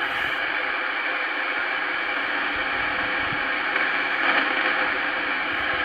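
Superstar SS-3900 Black CB transceiver's speaker giving out steady receiver static, an even hiss on an idle channel between transmissions.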